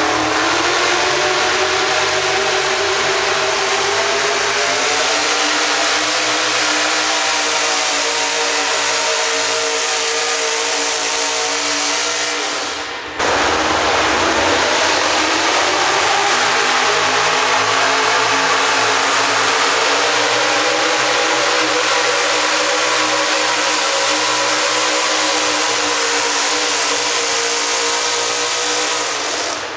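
Hot rod pulling tractor engine running hard at high revs under load while dragging a pulling sled, its note wavering slowly as the load changes. The sound breaks off briefly about halfway through, then another full-throttle run comes in.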